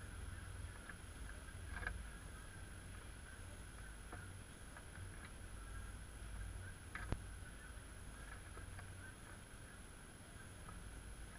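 Faint outdoor background: a low steady rumble, scattered faint chirps, and two sharp clicks, about two and seven seconds in.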